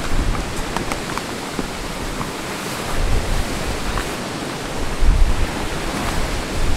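Strong, gusty wind buffeting the microphone, swelling about three seconds in and again near the end, with a large camping tarp flapping and snapping on its poles.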